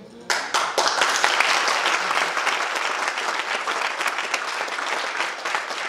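Audience applauding, starting suddenly just after the start and holding steady as a dense patter of many hands.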